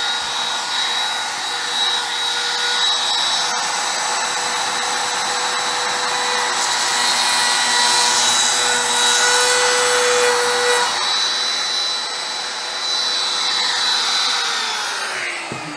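Compact trim router with a 1/4-inch roundover bit running at full speed, routing a test roundover on the edge of a scrap of PVC foam board. It gives a steady high motor whine with rougher cutting noise in the middle, and the motor winds down near the end.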